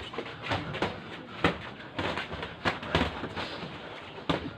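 Boxing gloves smacking against handheld punch mitts. The sharp slaps come in quick, irregular combinations of two or three, the loudest about a second and a half in.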